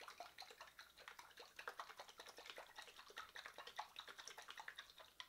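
Faint sloshing and splashing of balsamic vinegar and olive oil in a small glass jar shaken hard by hand to emulsify the dressing. It is a quick, irregular patter that stops suddenly at the end.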